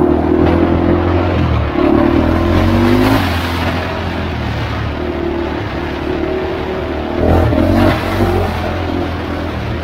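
A Honda 400EX quad's single-cylinder four-stroke engine pulling under load, its pitch rising and falling as the throttle is opened and eased, with a louder surge about three-quarters of the way in. A steady rush of wind and trail noise runs under it.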